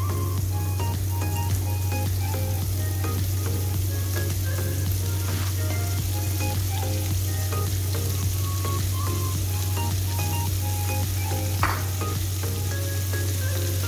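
Sliced chilies, shallots and garlic frying in hot oil in a wok: a steady sizzle, with one sharp knock near the end.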